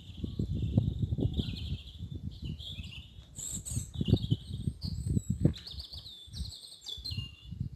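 Small songbirds singing continuously in quick warbling, trilling phrases, over irregular low thuds and rumble.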